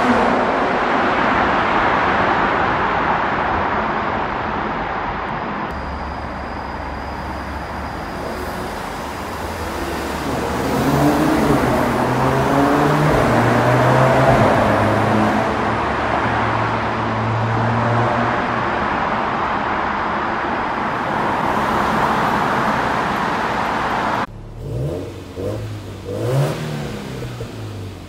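Mercedes-AMG C43's 3.0-litre twin-turbo V6 exhaust under hard acceleration in a road tunnel, echoing off the walls; loud at first, fading, then rising again from about ten seconds in. About four seconds before the end it cuts abruptly to a quieter engine being revved in short blips.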